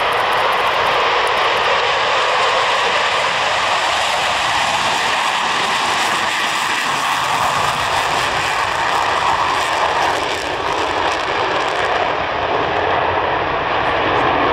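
Four F/A-18 Super Hornets' GE F414 turbofan engines at takeoff power: a loud, steady jet roar as the formation lifts off and climbs away.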